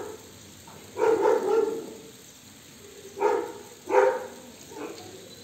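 A dog barking: a handful of short, sharp barks about a second apart.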